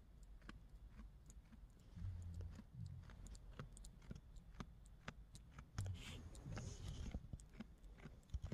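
Faint, close-up clicking and soft rustling from a goat nuzzling the phone with its nose and mouth, over a low hum.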